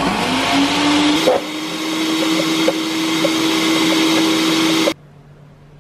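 Countertop glass-jug blender motor switching on, spinning up to speed over the first second, then running steadily with a faint regular ticking as it purees banana into a thick ice cream. It cuts off suddenly near the end.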